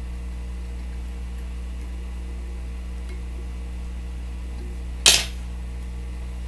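Steady low electrical hum, with a single short, sharp click about five seconds in as the whip-finish tool comes off the tying thread.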